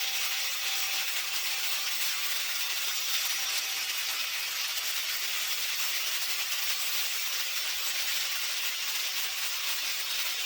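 Grinder with a thick abrasive disc grinding the steel head of an old blacksmith's hammer: a steady, high hiss of abrasion.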